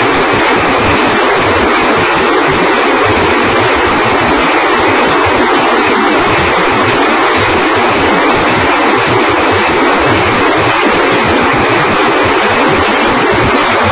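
Czech-made multi-barrel rocket launcher firing a salvo, the rockets' launches running together into one loud, steady rushing roar with no separate bangs standing out.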